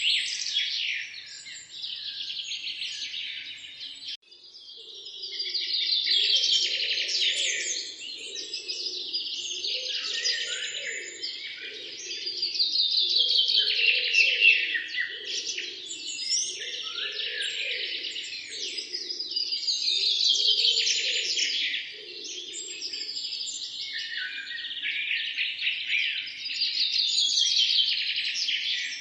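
Many small birds chirping and twittering at once, high-pitched and continuous, dropping out briefly about four seconds in. A lower, repeating pulsed sound runs beneath the chirping from about five seconds in until about twenty-two seconds.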